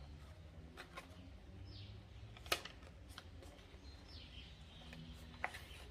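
Soft paper handling as a handmade journal's thick, collaged pages are touched and turned, with a few light taps and one sharper click about two and a half seconds in, over a faint low hum.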